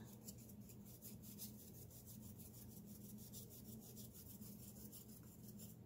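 Flat paintbrush scrubbing acrylic paint onto paper in quick back-and-forth strokes: a faint, regular rasping several times a second, over a low steady hum.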